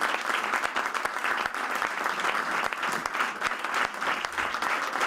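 Audience of a few dozen people applauding steadily.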